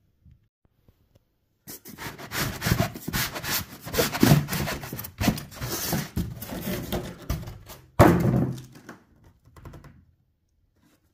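Cardboard box and styrofoam packing being handled: a run of scraping, rubbing and knocks that starts about two seconds in and lasts several seconds, with one loud thump about eight seconds in.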